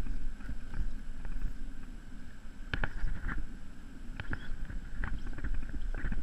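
Strong wind buffeting a head-mounted camera's microphone, a steady low rumble, with a few brief sharp clicks a little past the middle.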